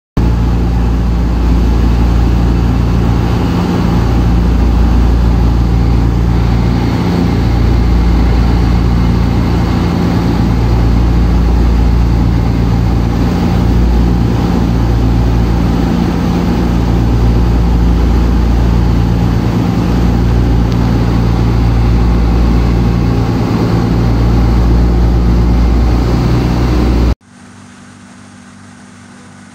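Loud, steady engine running with a dense rumble, cutting off abruptly about 27 seconds in and leaving a much quieter steady hum.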